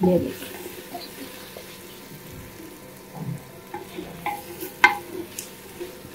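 Okra being stirred into sizzling masala in a clay handi: a spoon scraping and clinking against the pot over a low frying sizzle. A knock at the very start, and a sharp clink a little before five seconds in.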